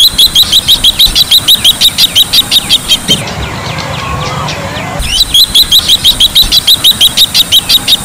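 Bronze-winged jacana calling: two runs of rapid, high piping notes, about eight a second, each lasting about three seconds. A fainter, lower call sounds in the pause between them.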